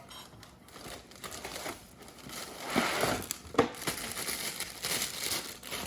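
Plastic cereal bag liner crinkling as it is handled, in uneven crackly stretches, with a couple of sharp clicks about halfway through.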